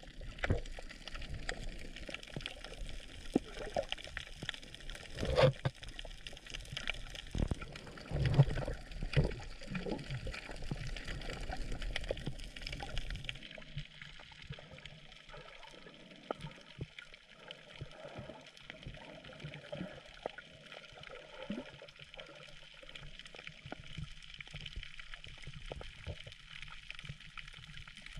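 Water noise picked up by a snorkeller's camera in the sea, with scattered sharp clicks. The sound changes suddenly about halfway through.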